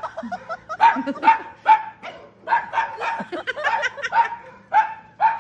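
A dog barking over and over in short, sharp barks, about two a second.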